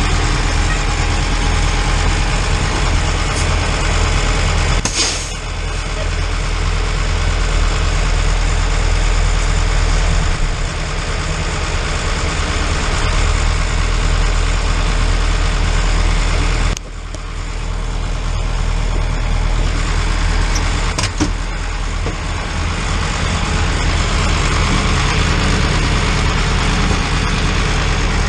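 Ford dump truck's engine running steadily as the loaded truck is driven. The engine note drops briefly twice, about five seconds in and again about seventeen seconds in.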